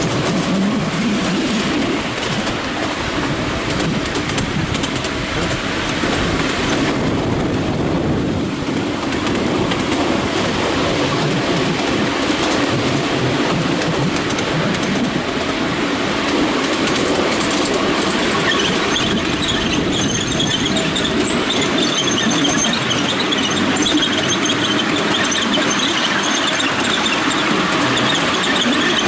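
Ride-on miniature railway train, hauled by a miniature Class 43 HST locomotive, heard from on board: a steady rumble and clatter of the wheels running on the track. A higher-pitched squeal joins in about two-thirds of the way through.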